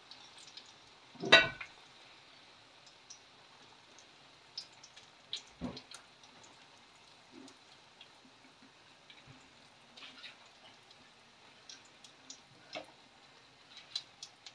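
Wooden chicken tikka skewers set down in a pan, with a sharp knock about a second in and another near the middle. Under them, a thick gravy simmers on very low heat with faint scattered pops and ticks.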